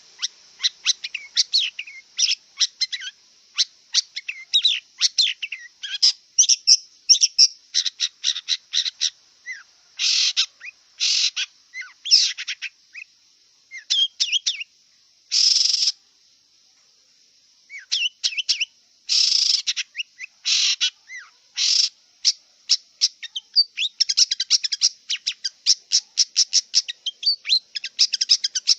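Long-tailed shrike singing a rapid, varied song of quick chirps and trills broken by several harsh, rasping notes, with a short pause around the middle and a fast run of chirps near the end.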